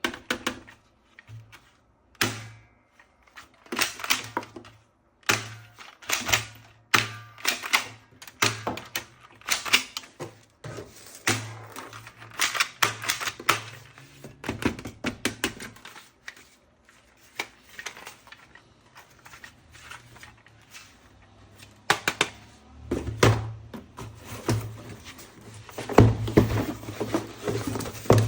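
Sharp clicks and clacks of hard plastic as a toy gun is handled, coming irregularly about once or twice a second. They thin out in the middle and come in a louder, denser cluster near the end.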